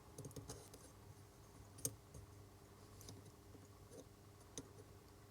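Faint small clicks and light scrapes of a metal pin and soldering iron tip working at a solder-filled hole in a small circuit board, with one sharper tick a little under two seconds in, over a faint steady hum.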